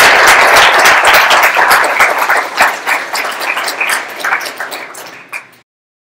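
Audience applauding, a dense wash of clapping that thins to scattered claps and fades, then cuts off suddenly about five and a half seconds in.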